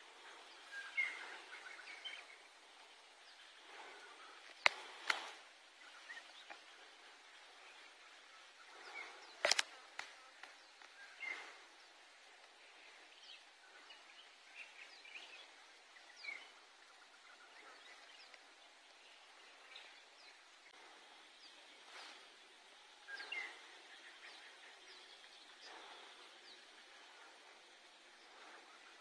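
Open-field ambience: a steady hiss with scattered short bird chirps, and a few sharp clicks about five seconds in and again near ten seconds in.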